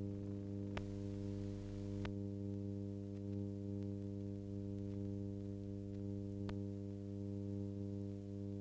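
Steady electrical mains hum, a low buzz with a stack of fixed overtones, unchanging throughout, with three brief clicks, about a second in, about two seconds in, and a little past six seconds.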